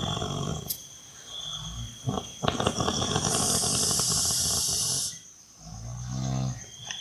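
A person snoring heavily in rough, rattling breaths. A long, loud snore runs through the middle, and after a short pause a lower, humming snore comes near the end.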